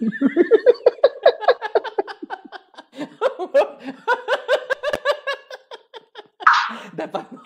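Two men laughing hard over a video call, in rapid repeated bursts of laughter, with a short breathy burst near the end.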